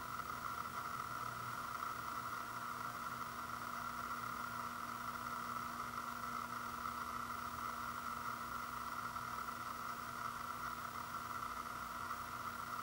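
Steady background hiss with a faint constant hum and no other events: room tone.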